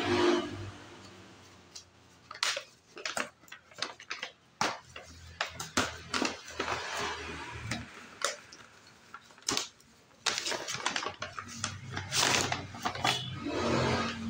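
A kraft paper shopping bag being unfolded and handled: stiff paper crinkling and rustling in irregular bursts, with small knocks and clicks, and longer rustles near the end as a boxed item is pulled out of it.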